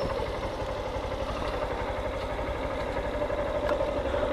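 Motorcycle engine running steadily at low revs as the bike rolls slowly along a paved street, with an even hum and no change in speed.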